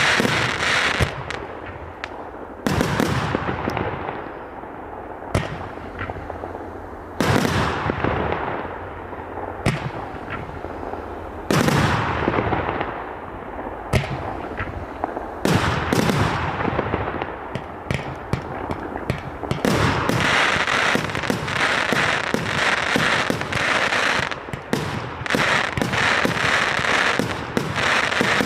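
A 1.3G multi-shot fireworks cake firing. Loud bangs come every few seconds, each trailing off in crackle, and from about twenty seconds in a dense run of crackling pops follows.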